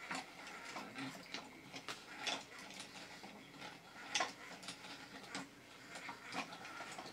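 Small 3D-printed walking toy robot running on its single-AA 1.5-volt motor, its plastic walking mechanism giving faint, irregular clicks, one or two a second.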